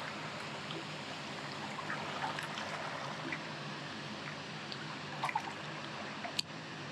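Steady rush of flowing river water, with a few faint clicks and one sharper click near the end.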